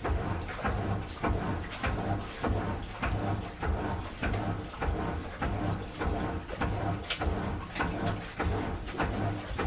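Washing machine running a strong cycle: a steady low motor hum under a rapid, uneven series of knocks and clatters, about two to three a second, from the turning drum and its load.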